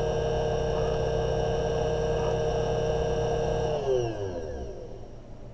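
Watchmaker's lathe motor running at a steady speed with a high hum; about four seconds in it is switched off and the hum falls in pitch as the spindle winds down.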